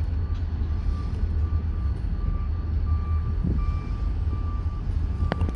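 Steady low rumble with a reversing alarm beeping again and again over it, and one sharp click near the end.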